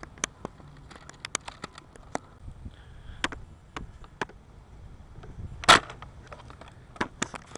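Clicks and clacks of a Nerf blaster being reloaded and primed, with one louder shot about three-quarters of the way through.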